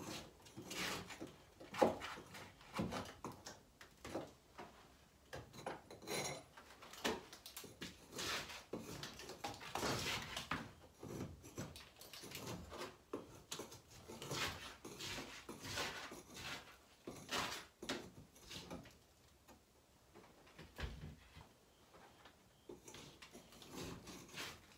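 Painted sand-wall (sunakabe) coating being scraped and peeled off a wall panel: irregular scratchy scrapes and crumbling, with a short lull about three-quarters through. The sand plaster under the paint has deteriorated and comes away with little force.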